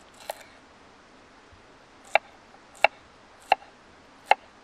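Kitchen knife chopping a cucumber on a wooden cutting board: a light tap, then four sharp chops, evenly spaced about one every 0.7 seconds.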